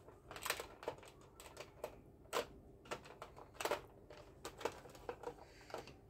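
Irregular hard plastic clicks and knocks of a Nerf Elite Stryfe toy blaster being handled, about a dozen in all, a few louder ones near the middle.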